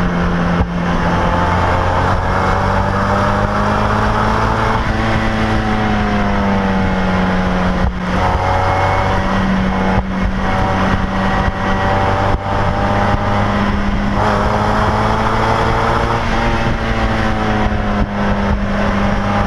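Mazda MX-5 Miata NC's four-cylinder engine heard through a Flyin' Miata axle-back exhaust while driving, from inside the open cabin. The note rises and falls as the revs change, with a couple of short breaks in it, around a third and two thirds of the way in.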